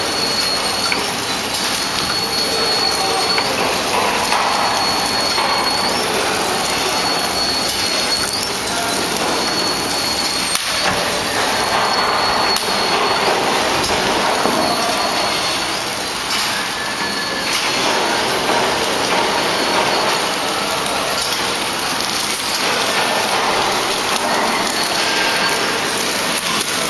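Horizontal form-fill-seal (flow-wrap) packing machine running steadily, its conveyor and sealing mechanism making a continuous mechanical clatter.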